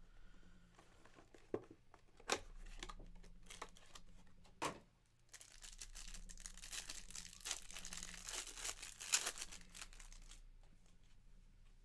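A sports-card box and pack being opened: a few sharp clicks and taps as the cardboard box is handled, then, from about halfway, the pack's wrapper being torn and crinkled. Faint throughout.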